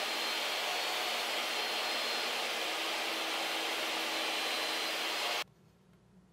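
DeWalt jobsite table saw running steadily while a pine board is fed through the blade. The sound cuts off abruptly about five seconds in, leaving a faint low hum.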